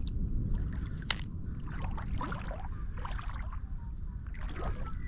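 Shallow water sloshing and trickling around legs wading through it, with one sharp click about a second in.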